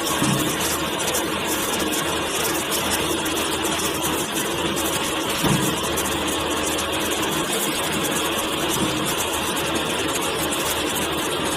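Mini wheel loader's engine running steadily, with a dense mechanical clatter over a low hum.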